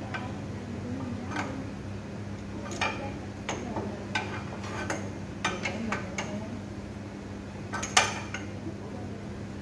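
Steel adjustable wrench clinking against the nuts and metal flange of an electric motor as the bolts are turned: about a dozen irregular, sharp metal clinks, the loudest about eight seconds in, over a steady low hum.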